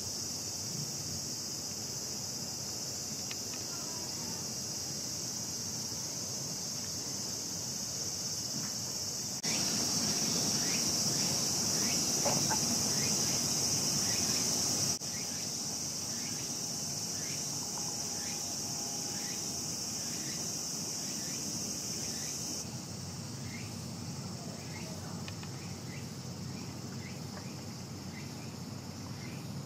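Cicadas droning in a steady high hiss, which stops abruptly about three-quarters of the way through. From about halfway on, short chirps repeat about once a second.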